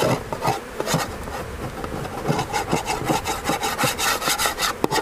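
Beehive inner cover being scraped clean of burr comb, a run of quick rasping strokes that come thicker near the end, with honeybees buzzing throughout.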